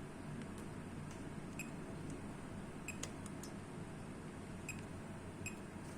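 Faint scattered ticks and clicks, about half a dozen spread over several seconds, from multimeter test probes being set on a diode's leads on a UPS rectifier board, over a low steady hum.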